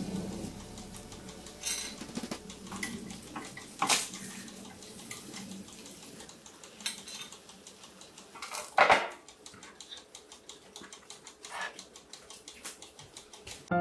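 Metal tongs clicking against a grill rack and plates set down on a counter, scattered clicks and knocks with the loudest knock about nine seconds in, over a faint steady sizzle of saury grilling.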